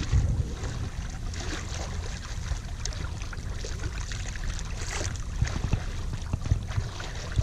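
Water rushing and splashing along the hull of a Saturn 25 L sailing yacht under way, with irregular small splashes, and wind rumbling on the microphone.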